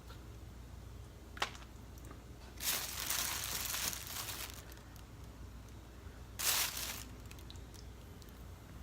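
Crinkling and crunching from handling a snow crab meal: one sharp snap about a second and a half in, then a crinkle lasting about two seconds and a shorter one near the end.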